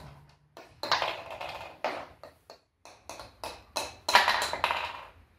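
A run of irregular taps and knocks, some sharp and some in quick clusters, loudest about four seconds in.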